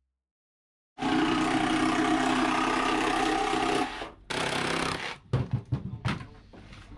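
Handheld power tool buzzing steadily for about three seconds, stopping, then running again briefly and in short bursts as it works on a panel.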